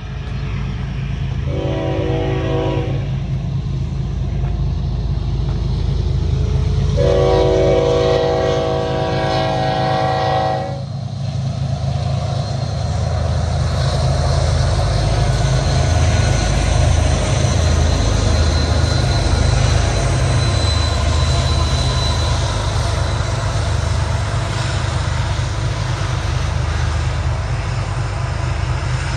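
Union Pacific freight train passing: the diesel locomotives' horn sounds two blasts, a short one about two seconds in and a longer one from about seven to ten seconds. Under them runs the steady low rumble of the locomotives, which goes on as the freight cars roll by.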